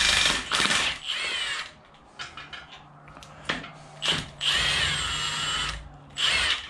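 Milwaukee Fuel cordless ratchet running in repeated bursts, its motor whine rising and falling with the ratchet head clattering, as it spins rusted sway-bar bolts loose. The longest run comes a little past halfway through.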